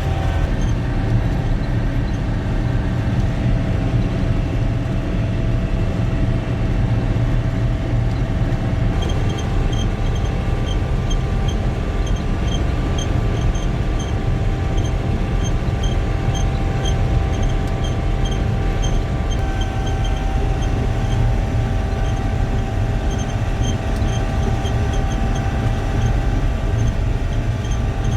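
Self-propelled swather running steadily, heard from inside the cab: a low engine drone with held whining tones from the drives. From about nine seconds in, a light regular ticking joins it, a few ticks a second.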